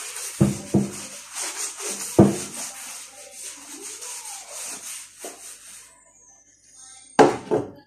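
Scrubbing on ceramic wall tiles by hand in quick, rhythmic strokes, stopping about six seconds in. A few dull knocks come in the first couple of seconds, and one sharp, loud knock near the end.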